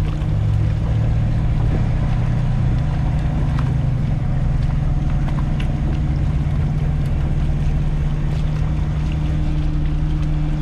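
A moored fishing boat's engine idling with a steady low hum, with a few faint knocks from the work around it.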